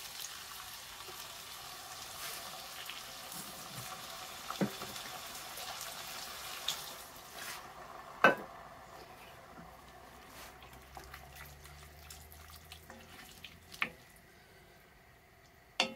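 Chickpeas and onions sizzling in a cast-iron pot as chopped tomatoes are tipped in, the sizzle dying away about halfway through. Then a wooden spoon stirring the stew, with a few sharp knocks, the loudest about eight seconds in.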